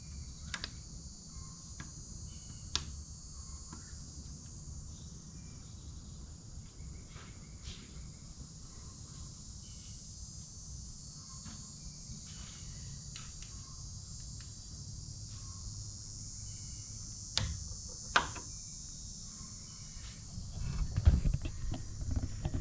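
Crickets chirping steadily in the background, with a few sharp metallic clicks as valve lifters are worked loose and pulled up from the engine block, and heavier clunking and handling noise near the end.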